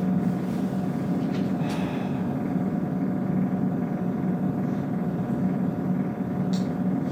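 Steady low room hum with a couple of brief soft rustles.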